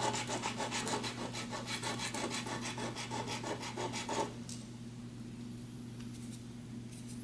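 Lamp switch knob rubbed back and forth on sandpaper to flatten its snapped-off end: quick, rhythmic scraping strokes that stop about four seconds in, leaving a faint steady hum.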